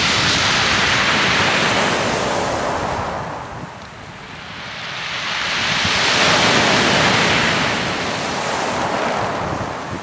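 Sea waves breaking and washing over a pebble beach, the water and beach stones together making a wide rushing noise. One surge fades about three to four seconds in, and a second builds to a peak a little past the middle and eases off near the end.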